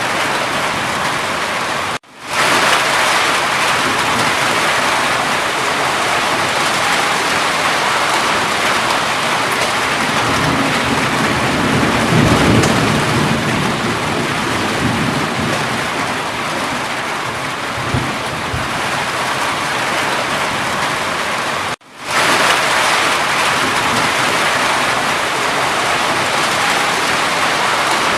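Steady, heavy rain hissing without a break, with a low rumble of thunder swelling about halfway through. The sound cuts out for an instant twice, once about two seconds in and once near the end.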